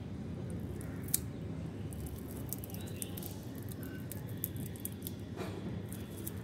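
Dry, papery mantis egg case (ootheca) crackling as fingers pull it apart, a run of small sharp clicks beginning about a second in, over a steady low background rumble.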